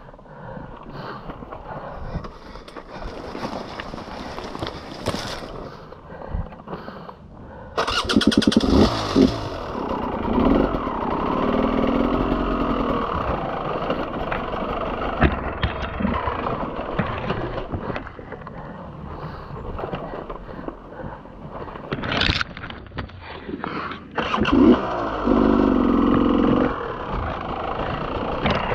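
Beta enduro dirt bike engine, low and uneven at first, then coming in loud about eight seconds in and rising and falling in bursts of revs, with knocks as the bike goes over rocks.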